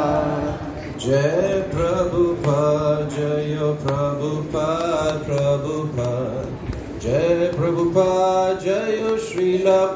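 A man's voice singing a devotional chant in long held and gliding phrases over a steady low drone.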